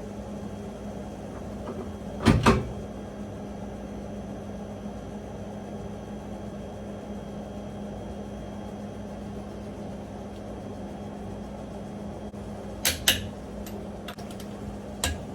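A steady low hum, broken by a loud double knock about two seconds in and a few sharp clicks near the end.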